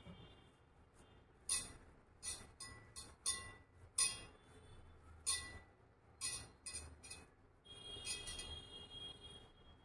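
Kitchen utensils clinking: about ten sharp clinks with a short ring after each, then a longer ringing scrape starting about eight seconds in.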